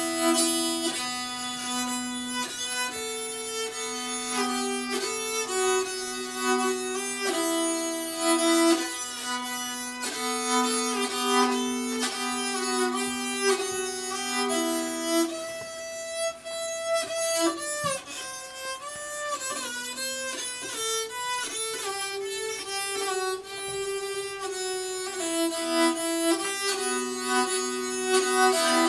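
Improvised solo on a small bowed string instrument: a melody of held and quicker notes played over a steady low drone note.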